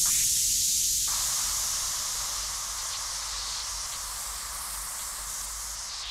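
Steady high hiss of electronic noise from an experimental film score, slowly fading; a lower band of noise joins about a second in.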